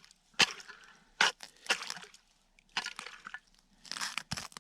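Irregular sharp crackles and wet splashes at an ice-fishing hole, about six in all, as fishing line is hauled up by hand through slushy water and ice.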